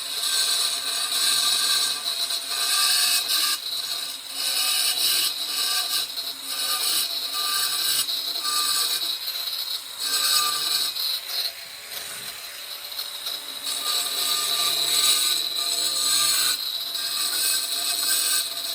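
Angle grinder with a diamond blade grinding around the inside edge of a hole in stone tile. The high whine and rasp swell and dip as the blade bites in and eases off, with a short lull about twelve seconds in.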